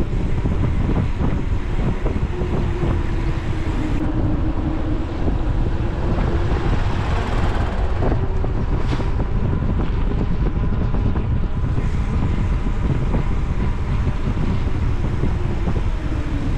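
Wind buffeting the microphone while riding a bicycle at speed: a loud, steady low rumble with no letup.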